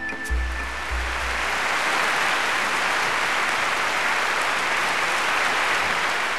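Large crowd applauding in a steady, dense wash, while the music's deep beats die away in the first couple of seconds.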